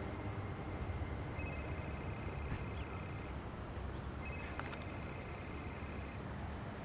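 Mobile phone ringing: a high electronic ring heard twice, each about two seconds long with a second's pause between, over a low steady hum.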